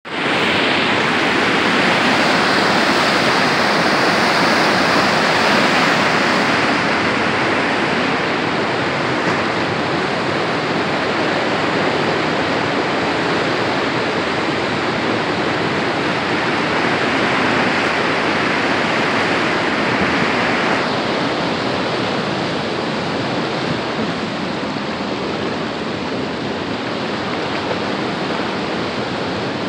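Water swollen by heavy rain rushing steadily, a loud even roar, easing slightly in its upper hiss about two-thirds of the way through.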